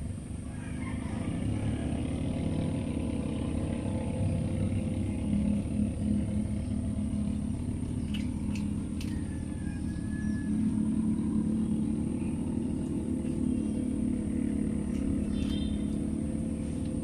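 An engine running with a steady low rumble and hum, growing a little louder about ten seconds in.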